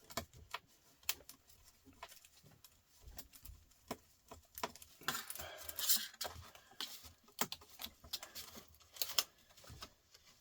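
Scattered clicks, taps and light clinks of small metal and plastic parts being handled while a TV/DVD unit is taken apart, with a brief scraping stretch about five seconds in.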